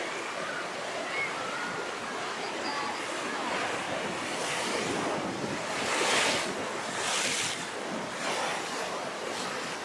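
Rough sea surf stirred up ahead of a typhoon: waves breaking and washing without a break, with wind on the microphone. The biggest wave crashes come about six and seven seconds in.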